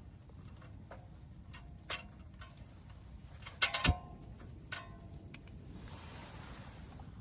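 Several sharp clicks and knocks of hard objects being handled, the loudest a quick cluster of three about halfway through, followed by a soft rustling hiss near the end.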